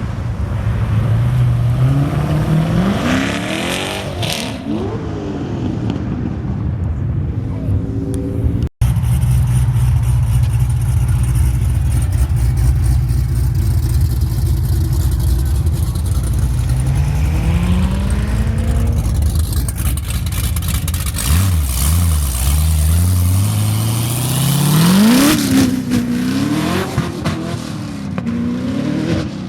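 Loud car engines revving and accelerating as the cars pull out, the engine pitch climbing and falling several times over a steady low rumble. The sound breaks off for an instant about nine seconds in.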